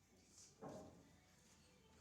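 Near silence in a quiet room, broken by one brief soft knock about half a second in.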